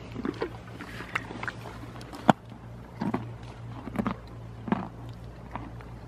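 A pony nosing and rummaging in a bag hung on a wooden fence: irregular knocks, rustles and thumps, with one sharp click a bit over two seconds in.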